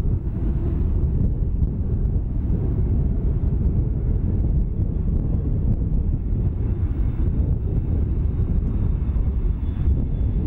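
An Airbus A321neo's CFM LEAP-1A jet engines on final approach, a steady low rumble, with a faint high whine coming in about halfway through as the jet nears.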